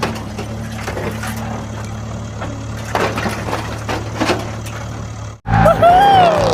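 A small motor running steadily, with scattered cracking and snapping sounds over it. Near the end it cuts off and a louder whistling tone glides up and down.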